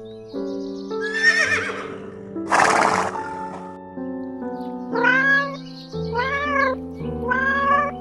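Domestic cat meowing three times, about a second apart, over background music. Earlier there is a wavering animal cry and a short rough burst of noise.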